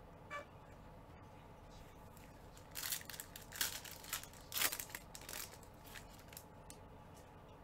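Foil wrapper of a basketball trading-card pack being torn open and crinkled by gloved hands as the cards are pulled out. A flurry of crinkling and tearing starts about three seconds in and lasts about three seconds.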